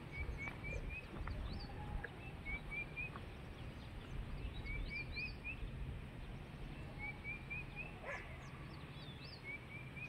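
An animal calling over and over: a short run of three or four quick rising chirps, repeated about every two seconds, with a few higher curved notes in between. A low rumble runs underneath.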